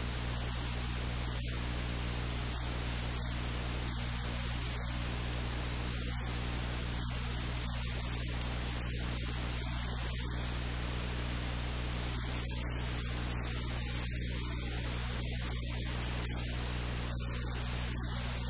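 Steady static hiss with a low hum underneath.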